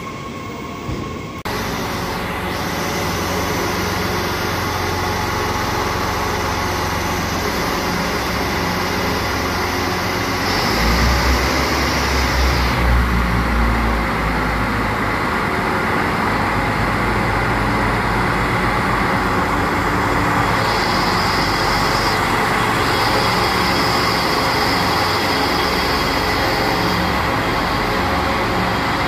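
TER regional train moving slowly along the platform: a steady rumble of its running gear and motors, swelling louder from about 10 to 14 seconds in, with a high hiss that comes and goes.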